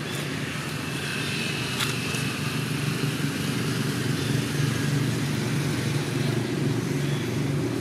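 Steady low rumble of an engine running nearby, with a brief click about two seconds in.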